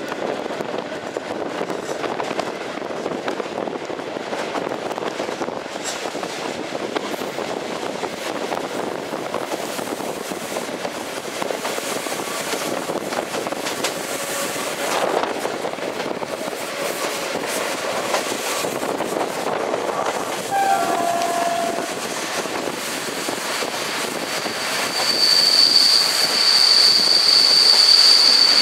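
Passenger train running on the track, heard from an open carriage window: a steady rumble and rattle of the wheels on the rails. About twenty seconds in comes a brief falling squeal, and from about three-quarters of the way through a loud, steady, high-pitched wheel squeal as the train rounds a curve.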